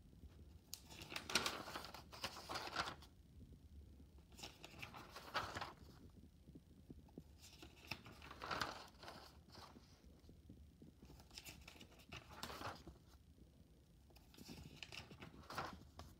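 Paper pages of a spiral-bound notebook being turned by hand: a faint papery rustle about every three seconds, five times in all.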